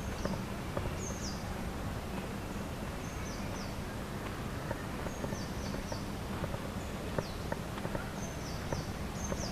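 Small birds calling repeatedly, with short, high, downward-sliding chirps in twos and threes every second or two, over a steady outdoor background hum.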